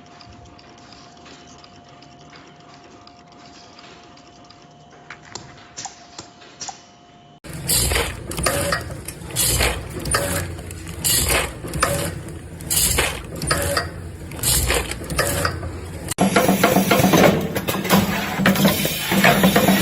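Industrial machinery in three separate stretches. First a faint steady hum with a few clicks. About a third of the way in, loud mechanical strokes begin, repeating roughly once a second. Past the three-quarter mark they give way abruptly to a dense, loud clatter.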